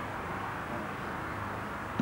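Steady outdoor background rumble and hiss on an old camcorder recording, with no distinct event in it.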